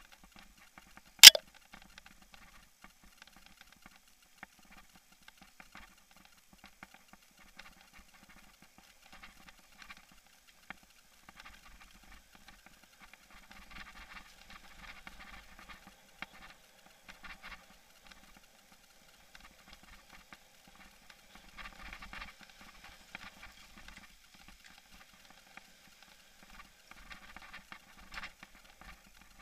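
Rattling of an action camera mounted on a mountain bike riding dirt singletrack: a stream of irregular small clicks and knocks from the bumpy trail, with one sharp loud knock about a second in.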